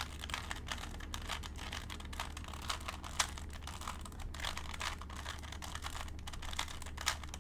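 A Rubik's Cube that is not a speed cube, stiff to turn, being turned by hand: rapid, irregular clicks and clacks of the plastic layers. A steady low hum runs underneath.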